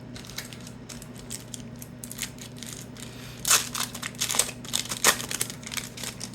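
Foil wrapper of a trading-card pack crinkling and tearing as it is opened by hand, in irregular crackles that are loudest a little past the middle.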